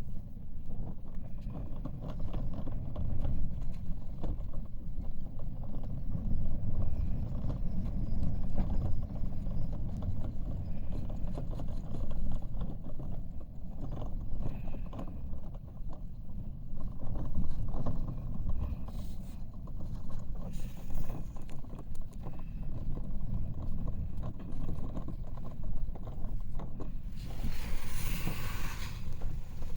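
Strong gusty wind buffeting the microphone: a deep rumble that swells and eases with the gusts. Near the end a brief hissing burst lasts about two seconds.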